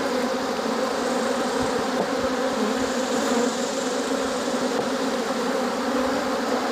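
Many honey bees buzzing in the air around an opened hive, one steady, dense hum that does not let up: a colony stirred up by its hive being opened and frames lifted out.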